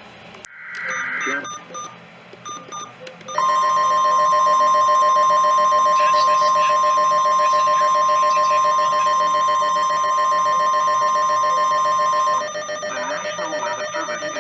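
Emergency Alert System broadcast signal: a few short data bursts, then a long, loud, steady single-pitch alert tone near 1 kHz. The tone lasts about nine seconds and cuts off abruptly.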